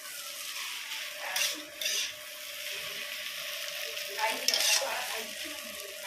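Food sizzling as it fries in a kadai while it is stirred with a steel spatula, with a few louder scrapes of the spatula against the pan around one and a half seconds, two seconds and four and a half seconds in.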